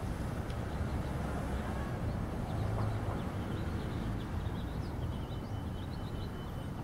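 Outdoor background: a steady low rumble, with faint short high chirps from about two seconds in.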